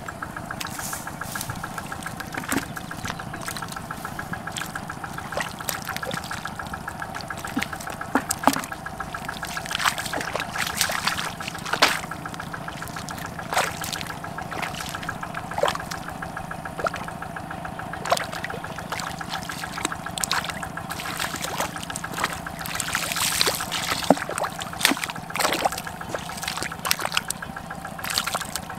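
Irregular splashing and squelching of hands and feet working in shallow muddy water, with many short sharp splashes, over a steady hum.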